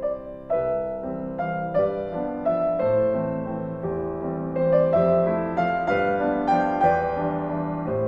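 Solo piano playing a melody over held chords, new notes struck about twice a second, growing a little louder from about halfway in.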